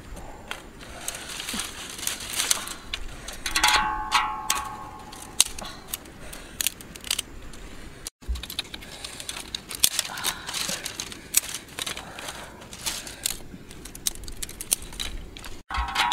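Irregular run of sharp clicks, clinks and crackles, like things being handled. A short ringing tone sounds about four seconds in and again near the end.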